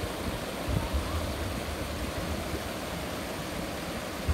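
River water rushing over shallow rocky rapids: a steady wash of water noise, with a brief low rumble about a second in.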